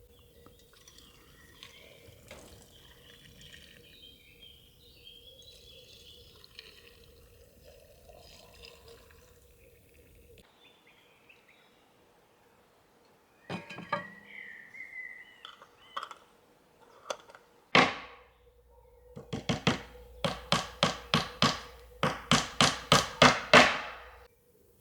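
Faint high chirping, then sharp knocks: a few scattered ones and one loud strike, building in the last few seconds into a rapid, even run of about four strikes a second.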